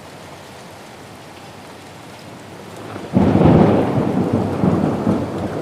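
Steady hiss of heavy rain, then about three seconds in a loud rolling rumble of thunder breaks in and carries on over the rain.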